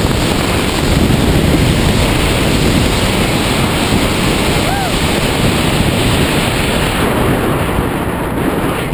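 Steady, loud wind rushing over the camera microphone during a tandem parachute descent under an open canopy, with a faint short voice-like tone about halfway through.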